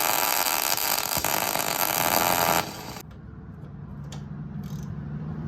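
Loud, steady metalworking noise on the Volkswagen engine's snapped exhaust stud, which cuts off abruptly about two and a half seconds in. It is followed by a low hum and a couple of light clicks.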